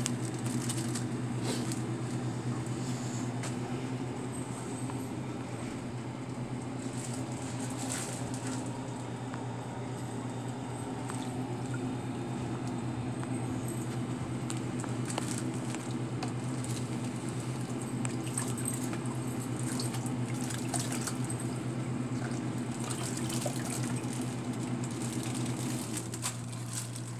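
Hands working in a bucket of water and emptying plastic coral bags into it: light splashing and sloshing with small handling clicks, over a steady low equipment hum.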